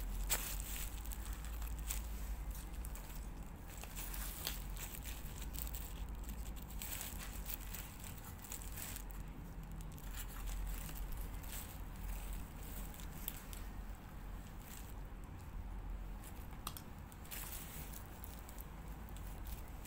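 Plastic bubble wrap crinkling and crackling as it is handled, in irregular crackles. They are busiest in the first half, thin out, then pick up briefly near the end.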